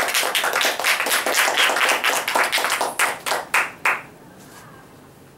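Audience applause, many hands clapping, that thins to a few last separate claps and dies out about four seconds in.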